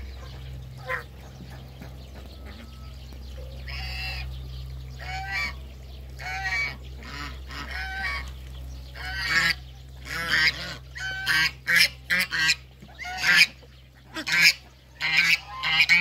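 Domestic geese honking. A few calls come early, then they grow more frequent and louder through the second half, overlapping several times a second.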